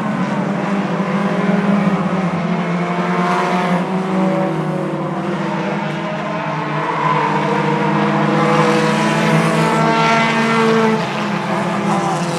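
A pack of four-cylinder short-track race cars running at speed, their engines droning on together. Cars sweep past several times, each pass rising and falling in pitch.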